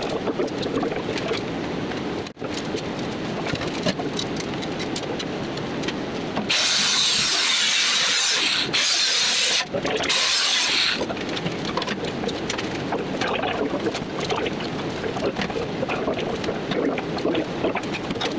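Welding arc crackling steadily as the steel exhaust pipe is welded, with a short break about two seconds in. Three loud bursts of high hiss cut in over it in the middle.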